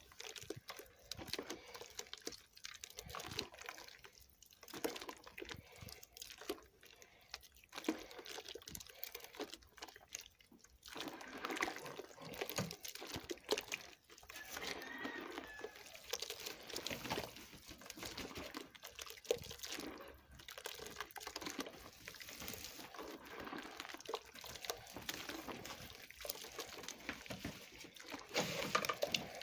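Hands squeezing and sloshing a wet, lumpy mix of sugar, butter, lard and yeast in hot water in a basin, working it by hand to dissolve it: irregular wet squelches and splashes with brief lulls.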